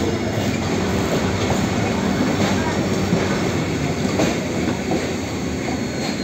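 Train rolling slowly out of the station: a steady rumble with wheels clicking over rail joints and points.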